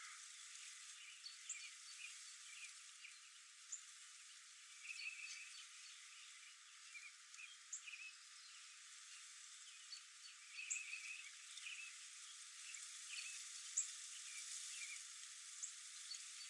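Faint wild bird chirps: many short high calls and a couple of quick rattling trills over a steady outdoor hiss.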